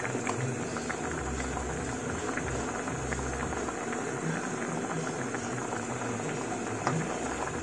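Squid stew boiling steadily in a wok, a dense patter of small bubbling pops.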